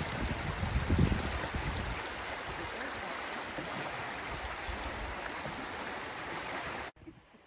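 Creek water rushing steadily over shallow riffles, with a few low wind buffets on the microphone about a second in. The sound drops away abruptly near the end.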